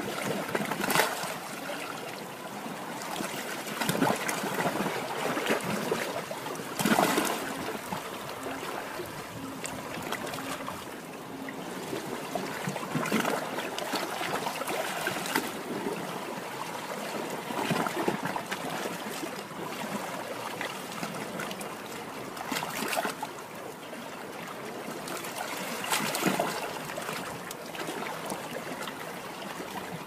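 Small waves breaking and washing in over a beach shore: a continuous hiss of surf with irregular louder washes every few seconds.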